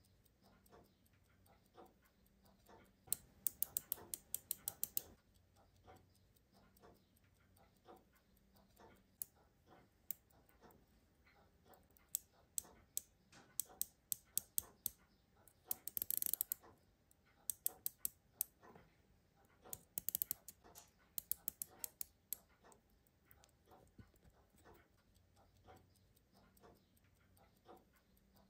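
Small metallic clicks from a bare pocket-watch movement's keyless winding works, coming in several quick runs of about five clicks a second as the winding is turned, with a brief scrape about sixteen seconds in.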